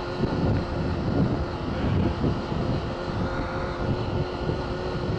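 Sport motorcycle engine running at a steady cruising speed, a constant hum, under wind and road noise.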